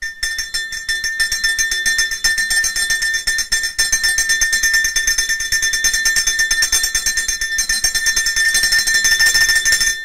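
LCS Long Distance dog bell, a small copper-coloured cowbell-style bell, shaken rapidly by hand so its clapper strikes many times a second, giving a continuous bright, high-pitched clanging ring.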